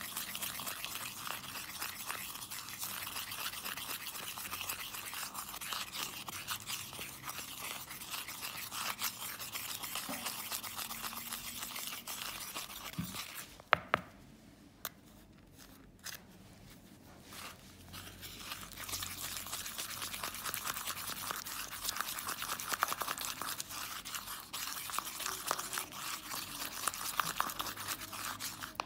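Metal spatula scraping and stirring wet plaster paste against the wall of a mixing bowl in fast, rasping strokes: the plaster is being mixed hard to work out the lumps. The scraping stops for a few seconds just before halfway, starting that gap with a couple of sharp taps, then resumes.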